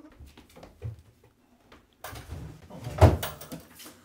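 Someone rummaging through a bedroom closet and dresser: scattered small knocks and rustling, growing busier after about two seconds, with a louder thump about three seconds in.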